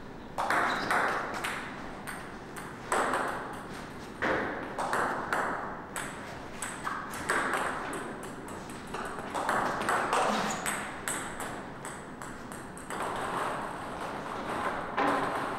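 Table tennis balls struck with bats and bouncing on the table: a string of sharp, irregularly spaced clicks, each with a short fading echo.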